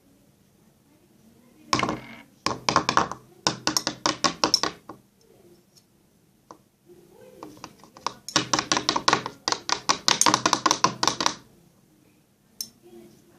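Several bursts of rapid clicking and rattling at about ten strokes a second, from handling the slime-making things. The longest run is about three seconds, in the second half.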